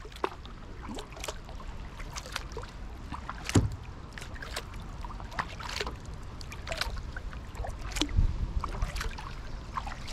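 Kayak paddling: water dripping and splashing in small scattered ticks from the paddle blades, with one louder knock about three and a half seconds in.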